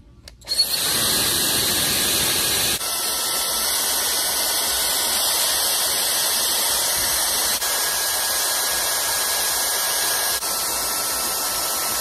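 LLANO high-speed hair dryer with a brushless motor, switched on about half a second in and running with a loud, steady rush of air and a faint high whine. The sound dips briefly and shifts slightly three times as the speed and temperature buttons are pressed.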